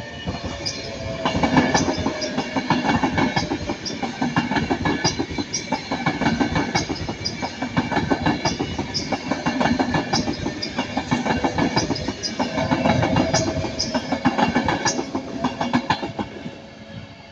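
Class 390 Pendolino electric train passing at speed, its wheels clattering over the rail joints in a rapid clickety-clack. The sound swells in about a second in, stays loud with a second peak near the end, then fades as the train clears.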